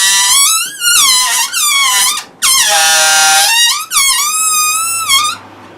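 Air squealing out through the stretched neck of an inflated rubber balloon, several loud, high-pitched screeches with a wavering pitch and short breaks between them.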